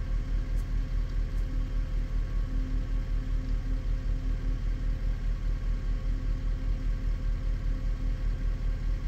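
Steady low machine hum that throbs about five times a second.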